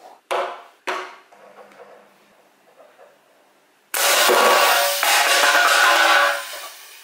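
Two strokes of a foot-operated air pump pushing air into a plastic-bottle air tank. About four seconds in comes a sudden long rush of air with a whistling tone: the whole bottle tank dumping through a Lego pneumatic gun's barrel to fire a dart. It lasts about two seconds and then fades.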